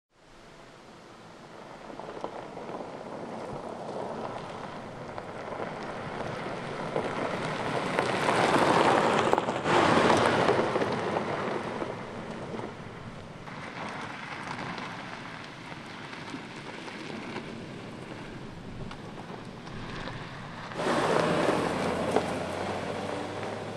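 Suzuki Jimny driving over gravel and dirt tracks: a steady rush of tyres crunching on loose stones. It swells loudest about eight to ten seconds in as the car passes, and a low steady engine hum joins near the end.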